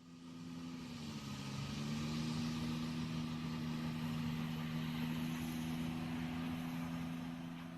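Steady engine drone with a slight dip in pitch about a second and a half in, fading in at the start and out near the end.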